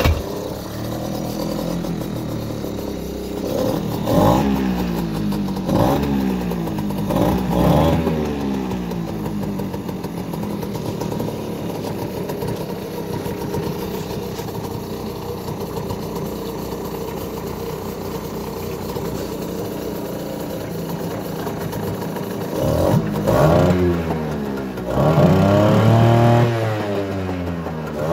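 Mercury 3.3 hp two-stroke outboard motor starting and running in neutral with no choke. The throttle is blipped several times in the first few seconds, then it idles steadily, and near the end it is revved up twice, the second time held for a couple of seconds.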